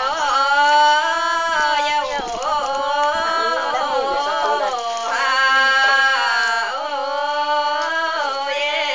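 Women singing a highland ethnic folk song in their own language: long held notes joined by sliding ornaments, in phrases that break off and start again about every three seconds.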